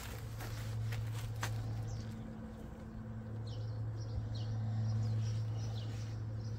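A steady low mechanical hum, with a few sharp clicks in the first second and a half and birds chirping in short high calls from about two seconds in.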